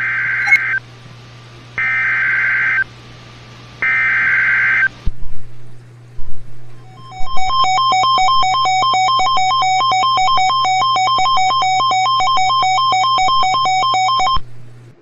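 Emergency Alert System header: three one-second bursts of warbling digital data tones, then after a short pause the two-tone attention signal, pulsing rapidly for about seven seconds. It opens a severe thunderstorm warning received over radio, with a steady low hum underneath that cuts off at the end.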